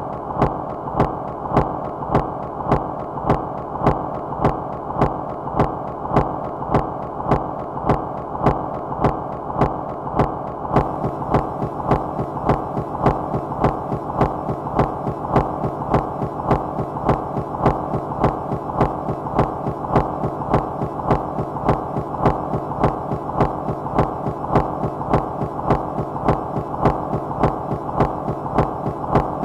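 Minimal rhythmic noise music: a dense, low droning noise with an even throbbing pulse about twice a second. A faint high hiss joins about eleven seconds in.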